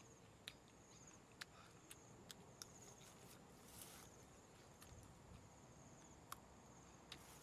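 Near silence: faint outdoor ambience with a high insect buzz that comes and goes, and a few scattered soft clicks.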